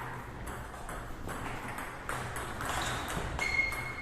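Table tennis balls clicking: quick, uneven ticks of celluloid or plastic balls striking bats and tables, a few per second. A brief high-pitched squeak comes near the end.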